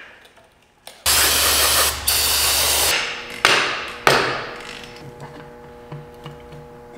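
A power tool runs in a loud burst of about two seconds, then a hammer strikes metal twice, about two-thirds of a second apart, each blow ringing briefly.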